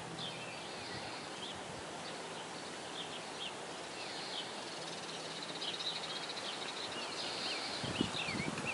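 Birds chirping over a steady outdoor hiss, with a rapid high trill through the middle. Near the end, the dull thuds of a Quarter Horse's hooves in arena sand come in.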